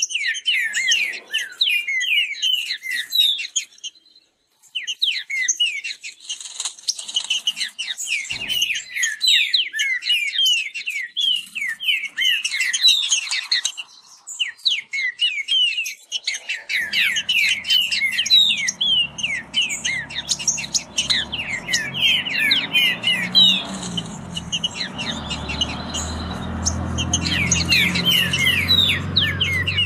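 Green-winged saltators (trinca-ferro) singing fast, packed strings of sharp whistled notes, with a short break about four seconds in and another around fourteen seconds. A low steady rumble comes in underneath at about seventeen seconds.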